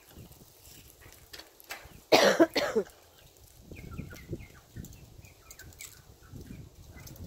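A person coughing twice in quick succession, about two seconds in.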